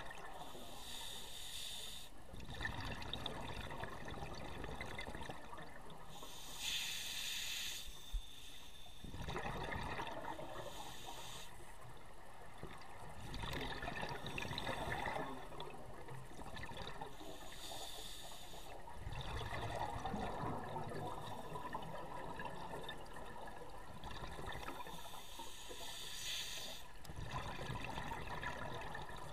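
Scuba diver breathing through a regulator, heard underwater through a camera housing: slow breaths about every six seconds, each a short hissing inhale followed by a longer burble of exhaled bubbles.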